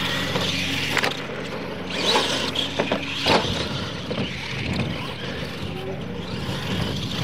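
Radio-controlled monster trucks racing on dirt: motors running and tyres scrabbling over the dirt, with a few sharp knocks.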